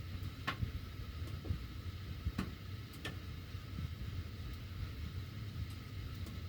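Sheet-metal heating ductwork ticking: sharp irregular ticks, the loudest three in the first half, over the steady low rumble of the furnace blower pushing heated air.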